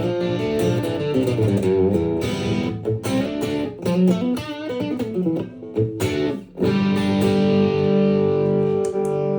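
Electric guitar, a Gibson Les Paul Tribute with Lollar P90 pickups, played direct through a UAD Enigmatic amp pedal. A run of quick picked single notes gives way, about two-thirds of the way through, to a chord left ringing.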